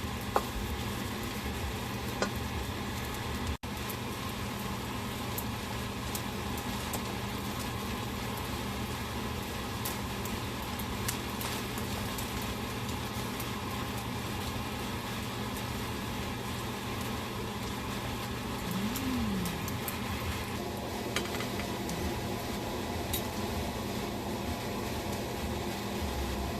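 Fried rice sizzling steadily in a hot pan, an even hiss, with a few light clicks of utensils against the pan.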